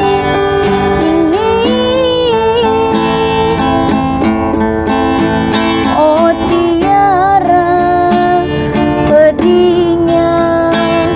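Acoustic guitar strummed under a melody of long held notes that bend and step between pitches: an instrumental break in a song, without sung words.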